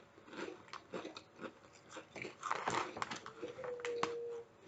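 Potato chips being bitten and chewed: repeated crisp crunches. A brief steady tone lasting about a second sounds near the end.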